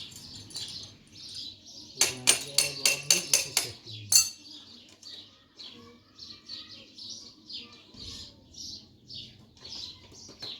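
Small birds chirping over and over, with a quick run of about eight sharp clinks between two and four seconds in and one more clink just after.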